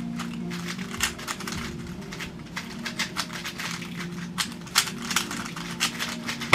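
Rubik's Speed Cube, a magnetic 3x3 puzzle cube, being turned rapidly during a speedsolve: a fast, irregular run of plastic clicks and clacks as its layers snap round.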